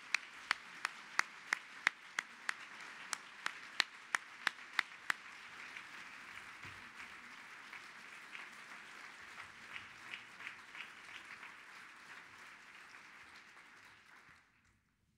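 Audience applauding. Loud, sharp claps from one person close to the microphone stand out about three times a second for the first five seconds. The applause dies away near the end.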